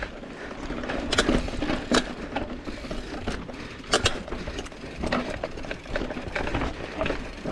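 Mountain bike rolling down a rocky trail: the frame, chain and parts rattle and click over a steady low rumble of tyres on rock, with sharper knocks about one, two and four seconds in as the wheels hit rock edges, picked up through a handlebar-mounted action camera.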